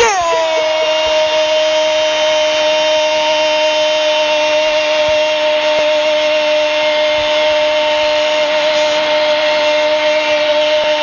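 Radio commentary's goal call: one long note held at a single steady pitch, starting with a quick downward sweep.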